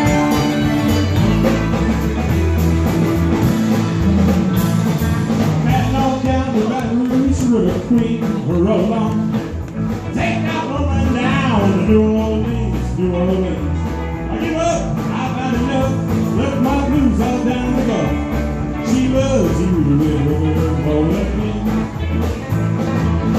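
Live rock band playing with electric guitars, drums and keyboard; a man's lead vocal comes in about six seconds in.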